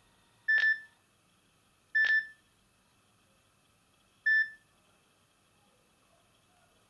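Nokia E50 mobile phone giving three short single-pitch key beeps, about a second and a half and then two seconds apart, the last one shorter.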